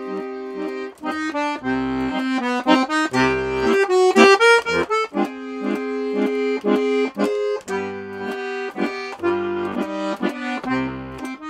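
Accordion playing an instrumental interlude of a slow Russian romance. A melody over chords, with low bass notes sounding on the beats.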